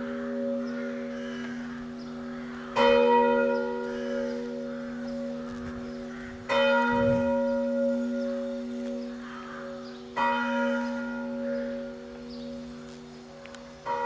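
A single church bell tolling, struck about every three and a half to four seconds. Each stroke rings on in a long steady hum into the next.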